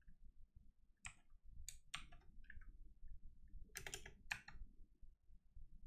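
A few faint, separate clicks of computer keyboard keys, about half a dozen spread over several seconds with gaps between them, some in close pairs.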